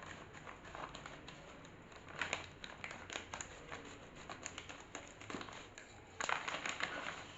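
Smartwatch packaging being handled and opened: scattered rustles and light clicks, with a louder stretch of crinkling about six seconds in.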